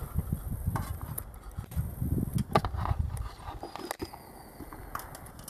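Metal serving spoon scraping and clinking against stainless steel plates as rice and chicken gravy are served, over a low rumble that dies away about three and a half seconds in.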